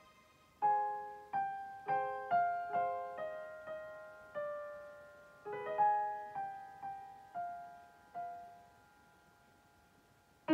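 Slow, soft piano music: a melody of single notes, each struck and left to fade, in two falling phrases, then a pause near the end.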